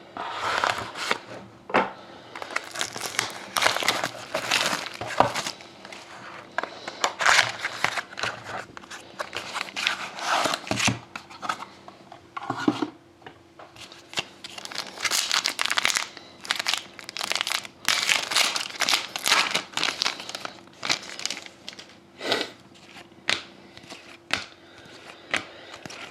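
Hockey card pack being torn open and its wrapper crinkled, with cards handled: a string of irregular rustling and tearing sounds.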